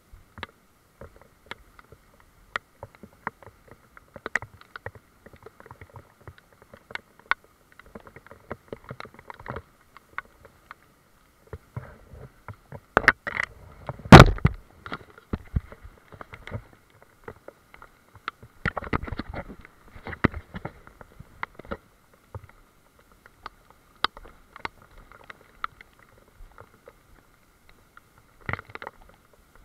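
Handling noise from a camera carried along a wet forest trail: irregular clicks and knocks, with rustling scuffs around the middle and one loud bump about halfway through, over a faint steady high hum.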